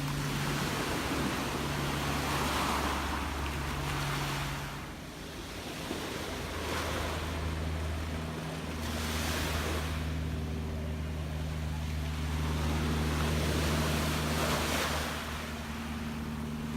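Gentle sea waves washing in and drawing back, a rushing hiss that swells every few seconds. A steady low hum runs underneath.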